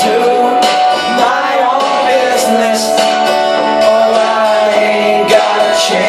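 A man singing live with an acoustic guitar: the sung melody over his own guitar accompaniment.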